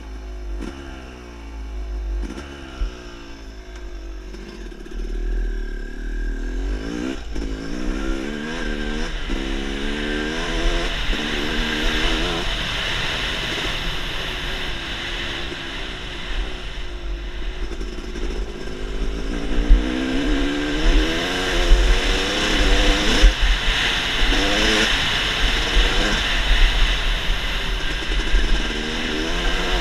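Dirt bike engine revving up and shifting repeatedly under hard acceleration, its pitch rising again and again, with wind buffeting the microphone as a low rumble.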